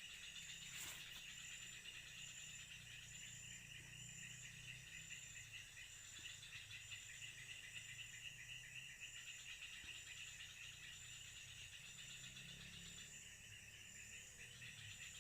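Faint, steady chorus of night insects, crickets trilling in two high pitches, over a low hum, with one soft click about a second in.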